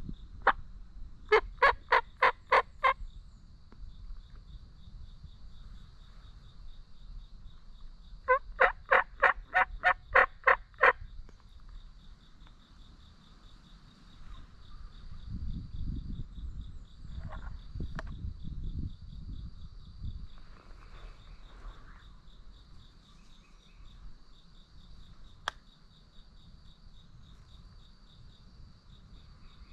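Two runs of turkey yelps, evenly spaced notes at about four a second: about seven notes, then about ten notes several seconds later. A steady high insect trill runs underneath.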